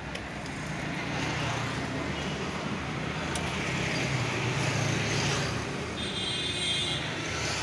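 Street traffic noise: a steady low rumble that swells through the middle as a vehicle passes and eases off near the end.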